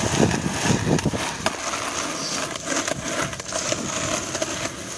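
Skateboard wheels rolling over pavement: a steady rolling noise with scattered clicks and knocks.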